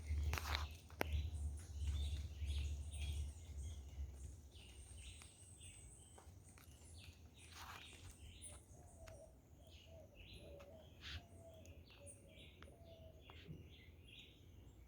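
Birds chirping and calling, many short chirps one after another, with a lower warbling call joining in over the second half. A low rumble sits under the first four seconds.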